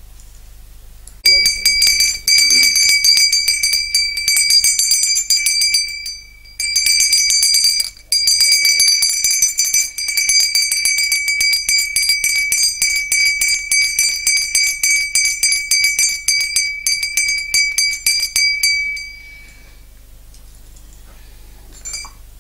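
Brass puja hand bell (ghanta) rung rapidly and continuously with a steady high ring, breaking off briefly twice, about six and eight seconds in, and stopping a few seconds before the end.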